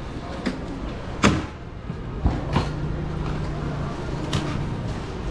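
A handful of sharp knocks and clicks from work at a pineapple-cutting fruit stall, the loudest a little over a second in, over a steady low background rumble.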